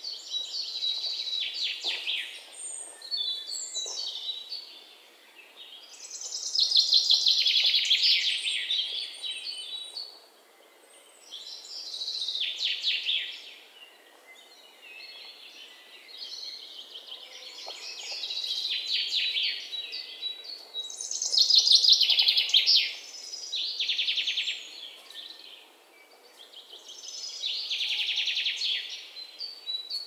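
A bird singing high-pitched, rapid trilled phrases, each one to three seconds long, repeated with short pauses between them, over a faint steady background hiss.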